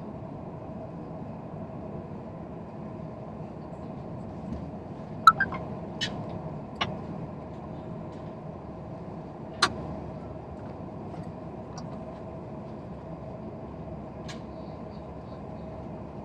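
Steady hum inside a high-speed train carriage, with one tone running through it. Several sharp clicks or knocks sound over it, the loudest about five seconds in and another near ten seconds.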